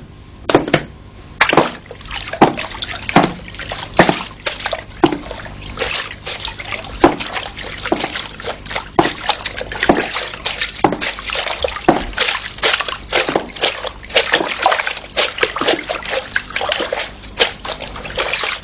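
Clothes being washed by hand in a basin of water: uneven splashing and sloshing as the wet laundry is worked, the strokes coming closer together after the first several seconds.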